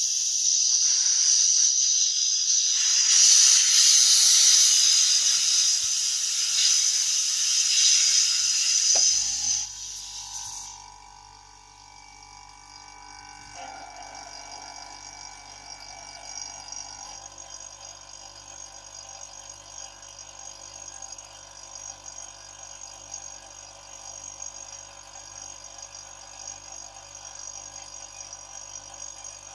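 Compressed air hissing loudly out of the tank for about nine seconds. Then a homemade air compressor's air-conditioner compressor starts with a low steady hum and runs quietly as the hiss dies away.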